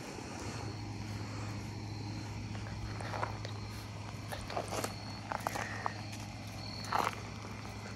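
Puppies' paws and shoes scuffing and crunching on gravel in a handful of short bursts, the strongest near the end, over a steady low hum.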